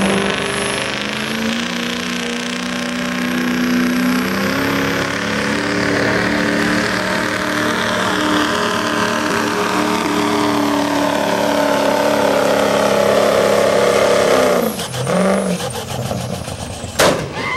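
Ford Super Duty pickup's engine running hard under full load as it pulls a sled, a steady drone that drops off abruptly about fifteen seconds in. A single sharp crack comes near the end.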